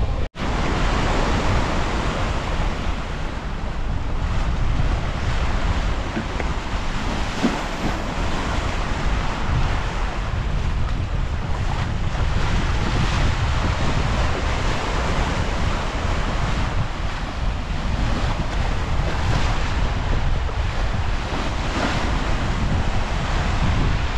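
Wind buffeting the microphone over the steady rush of sea waves at the bow of a square-rigged brigantine under sail. A split-second gap in the sound right near the start.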